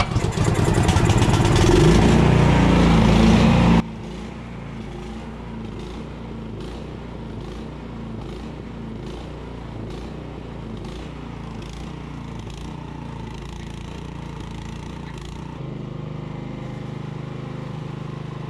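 The 13 hp single-cylinder four-stroke engine of a tracked snowblower, just pull-started, running loud and steady. After about four seconds the sound drops suddenly to a quieter, steady run.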